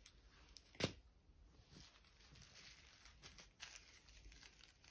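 Small plastic zip bags of diamond-painting drills being set down and handled: one sharp tap about a second in, then a few faint ticks and crinkles.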